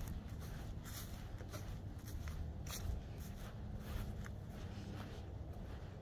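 Footsteps on grass and the rustle of a handheld phone while walking, heard as irregular soft ticks over a steady low rumble.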